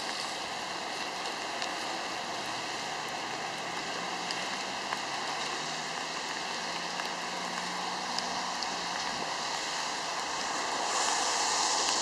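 Steady hiss of car tyres on wet pavement as cars drive across the tracks, with a faint low engine hum in the middle. The hiss swells near the end.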